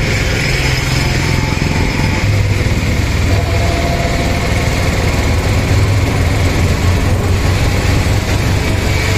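Engine running and road noise heard from inside a moving vehicle in traffic, a steady low rumble without a break.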